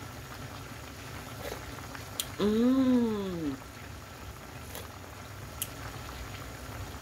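A pot of cauliflower and ground-beef stew simmering steadily, with a few faint clicks. About two and a half seconds in comes one long, rising-then-falling "mmm" of approval as the cook tastes the broth.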